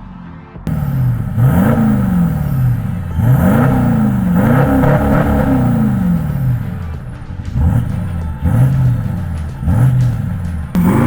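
Toyota LandCruiser 200 Series twin-turbo V8 diesel revved repeatedly through its aftermarket 3.5-inch turbo-back exhaust with a single 4-inch tip. The note climbs and drops in a series of throttle blips, starting suddenly about half a second in.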